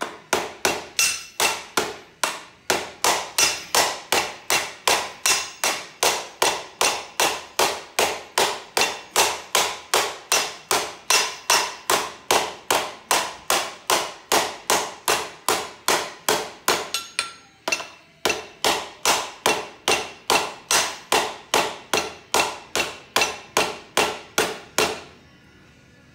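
Hand hammer beating on a front-tine tiller's sheet-metal chain case on a steel anvil: a fast, steady run of ringing metal blows, about three a second, with a short break about two-thirds of the way through and stopping shortly before the end.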